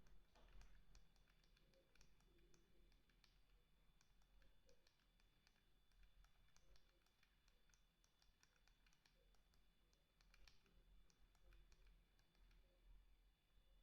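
Faint, irregular clicking, several clicks a second, as the BlackBerry 8707v's controls are worked to browse its menus. A faint steady high whine sits underneath.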